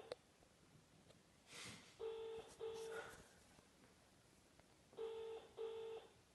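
Telephone ringback tone through a phone's loudspeaker: the British and Irish double-ring 'brr-brr' cadence, two double rings three seconds apart, as the outgoing call rings and is not yet answered. A brief rustle comes before the first ring.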